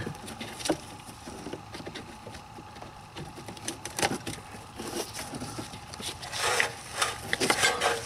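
Handling noise of a brake pad wear sensor wire and its connector being pushed up behind a plastic wheel-arch cover: scattered small clicks and taps, a sharper click about halfway through, and a short rustle with a few more clicks near the end.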